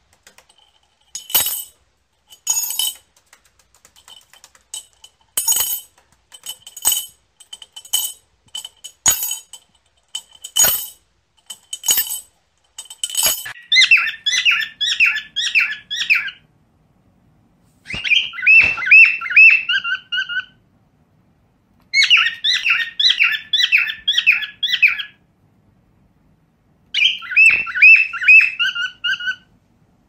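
A string of about nine sharp taps, roughly one a second, then a cockatiel chirping: four bouts of rapid, repeated high whistled chirps with short pauses between them.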